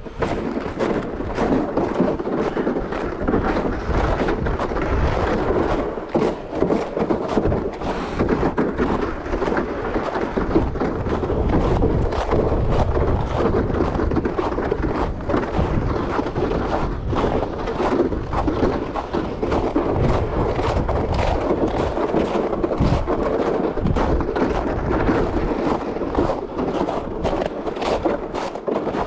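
Wind rumbling on the microphone, with footsteps crunching through snow in a quick, uneven series.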